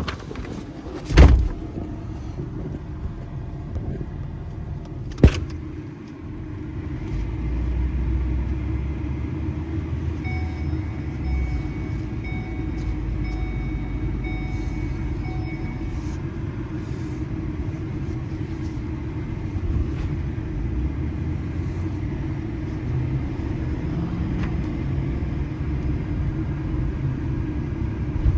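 Two sharp thuds about a second and five seconds in, then a motor vehicle's engine running with a steady low rumble.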